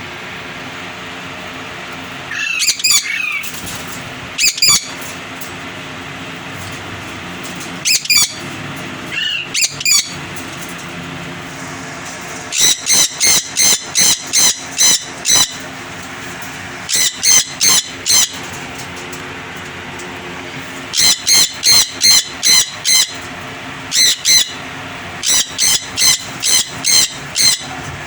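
Pair of parrots calling with short, sharp squawks, a few single calls at first, then several runs of quick repeated calls, about three or four a second, over a steady background hum.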